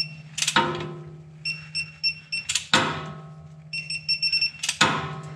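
Digital torque wrench beeping as a transfer case plug is tightened toward 27 foot-pounds: quick pulsed beeps in two spells, then a steady beep near the end, the usual sign that the set torque is reached. Three sharp metallic clinks ring out between the beeps.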